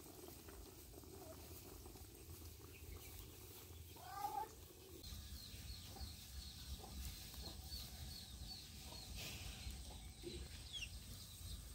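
Faint open-air background with a single short animal call about four seconds in, likely a domestic fowl, then a run of small high bird chirps repeating through the rest.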